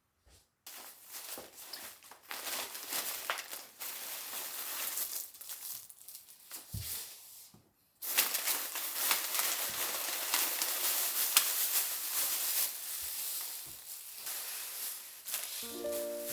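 Crinkling and rustling of packaging being handled, in two long stretches with a short break about halfway through; music comes in near the end.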